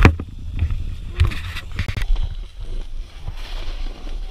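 Low rumble of wind and handling on an action camera's microphone, with several knocks and scrapes and a short hiss about three and a half seconds in.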